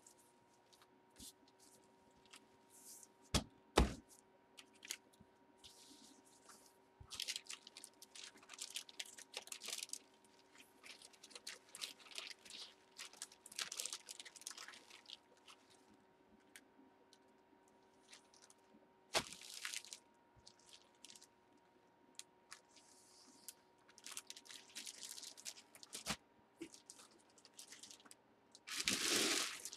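Clear plastic bag crinkling and rustling in bouts as a jersey inside it is handled, with two sharp knocks about four seconds in and a louder rustle near the end.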